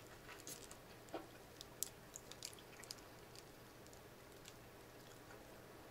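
Faint mouth sounds of a person biting into and chewing a frozen Snickers ice cream bar: a scatter of small clicks and crunches over the first three seconds, then almost nothing.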